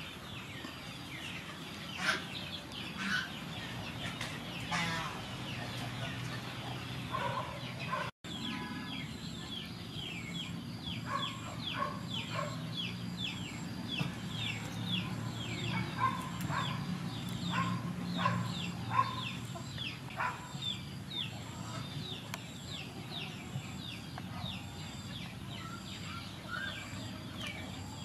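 Chickens clucking in the background while small birds chirp in quick runs of short falling notes, about three a second, through the middle of the stretch.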